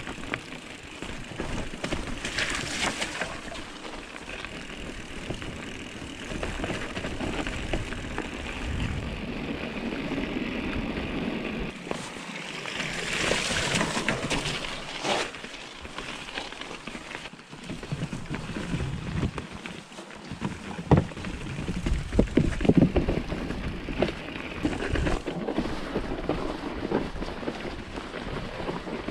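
Mountain bike ridden over a snowy trail: tyres rolling on snow and rough ground, the bike rattling, and wind on the microphone. A splash of the wheels going through a shallow stream about halfway through, and sharp knocks from the bike over bumps later on.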